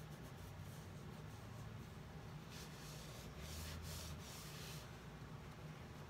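Faint rubbing of a cloth rag wiped over a leather shoe sole, a run of quick strokes about halfway through, while blue dye is daubed onto the sole edge.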